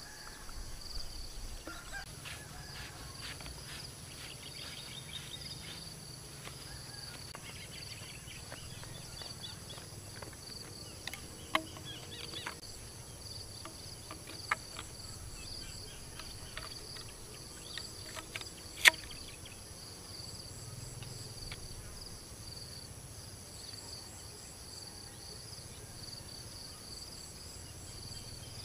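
Steady chorus of insects trilling at several high pitches, with a few sharp clicks and knocks of plastic pipe fittings being handled, one much louder than the rest about two-thirds of the way through.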